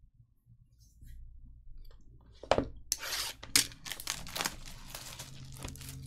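Plastic shrink wrap being torn and crinkled off a sealed trading-card hobby box. A sharp click comes about two and a half seconds in, followed by several seconds of dense crackling and tearing.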